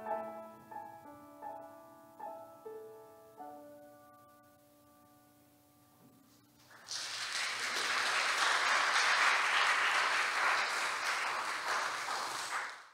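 Upright piano playing a few last closing notes that fade away. About seven seconds in, the audience breaks into applause.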